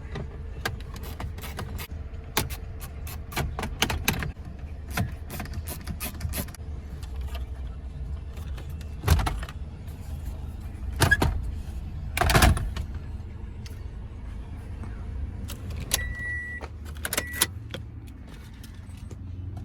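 Quick clicks followed by three loud knocks and clunks of tools and dashboard parts as the 10mm screws holding a 2014 Toyota Corolla's radio are taken out, over a steady low hum. A high steady beep sounds briefly near the end, then again more briefly.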